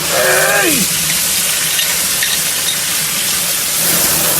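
Water spraying hard under mains pressure from a live 1-inch lead water service line, a loud steady hiss.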